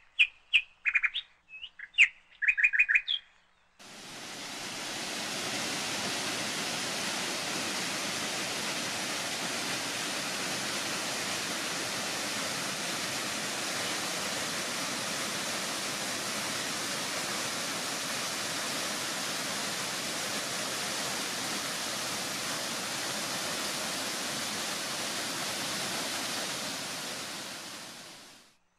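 Small birds give a few short chirps in the first few seconds. Then the steady rush of a waterfall fades in, runs evenly for most of the time, and fades out near the end.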